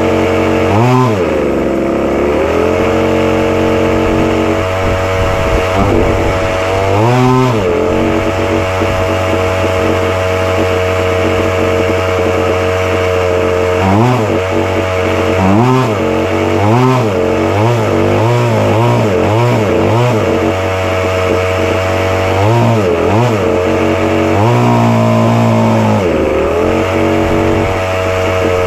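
Small 26cc two-stroke gas engine of an RC car (Chung Yang) running at a steady idle, blipped on the throttle again and again. The revs rise and fall back quickly in each blip, with a rapid run of blips in the middle and a longer rev near the end.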